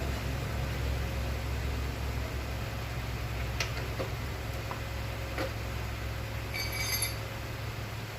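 A steady low hum with a few light clicks, and a brief high ringing tone about seven seconds in.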